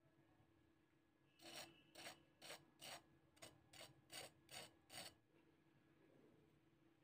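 A cooking utensil scraping against metal cookware in a quick series of about nine short rasping strokes, then stopping, over a faint steady hum.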